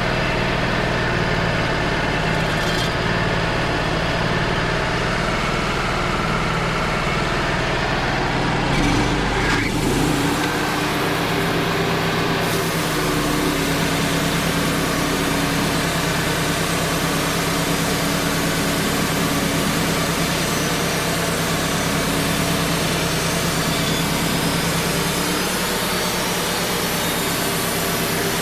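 Wood-Mizer LT35 HD portable band sawmill running steadily, its engine under load while the band blade cuts through an oak log. About nine to ten seconds in, the engine note shifts briefly, then settles back into the steady run.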